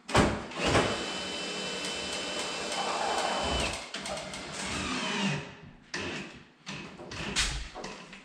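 Power drill running at a steady speed for about five seconds with a high whine, then stopping, followed by a few knocks. It is driving fasteners from inside the wall cabinet to mount an over-the-range microwave.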